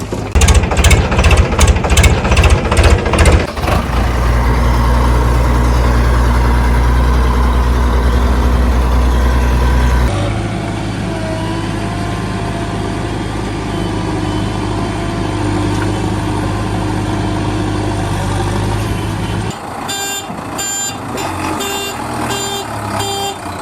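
A truck engine running steadily after a few seconds of rapid knocking, its note changing about ten seconds in. Near the end a reversing alarm beeps about twice a second over the engine.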